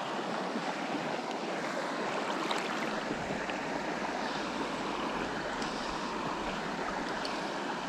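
Shallow rocky river flowing steadily over stones: an even rush and babble of water.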